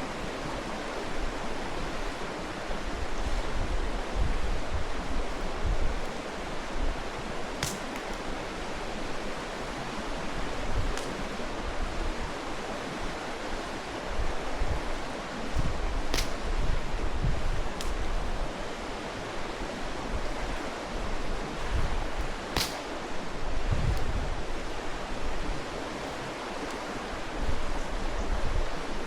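Mountain stream rushing steadily, with three sharp pops from a wood campfire about 8, 16 and 23 seconds in. Wind buffets the microphone now and then.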